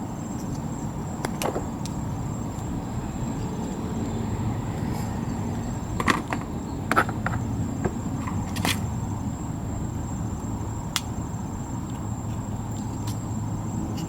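Scattered small clicks and taps of needle-nose pliers against a brake wheel cylinder as its rubber seals are worked on, over a steady low background hum.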